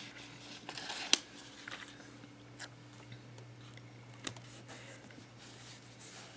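Paper stickers and a sticker sheet handled over a planner page: soft paper rustling and a few sharp clicks as a sticker is peeled and pressed down, the sharpest about a second in, over a faint steady hum.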